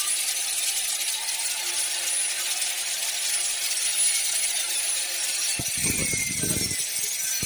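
Angle grinder with an abrasive disc cutting a steel pipe: a steady, high grinding hiss with the motor's hum under it, and a few low knocks near the end.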